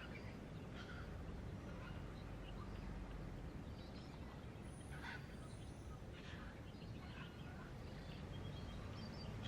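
Faint background ambience: a low steady hum with scattered short, faint bird chirps.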